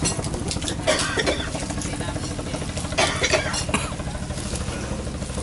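Table-side food handling: light clinks of dishes and rustles as gloved hands lay vegetables onto rice paper, in clusters about a second in and again around three seconds in, over a steady low rumble.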